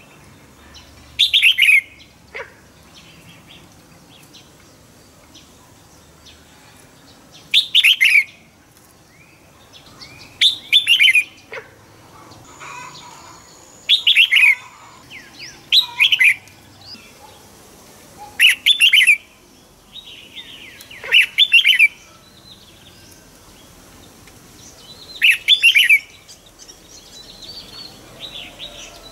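Red-whiskered bulbul singing: loud short phrases of quick whistled notes falling in pitch, repeated every two to four seconds, with softer twittering between them.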